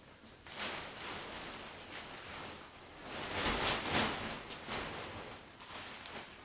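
Pop-up tent's fabric rustling and swishing as the pitched tent is grabbed, lifted and turned around by hand, loudest in the middle.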